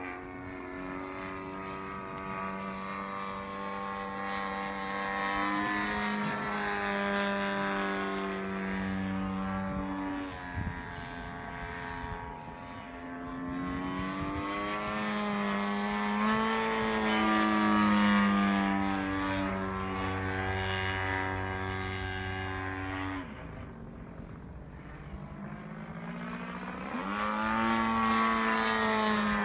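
Propeller engine of a Fokker aerobatic plane droning overhead, its pitch rising and falling as it climbs and dives through its manoeuvres. The note sags and gets quieter about ten seconds in and again around twenty-three seconds, then climbs and grows louder near the end.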